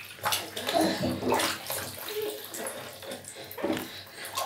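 Bath water splashing and sloshing in uneven bursts in a baby's bathtub.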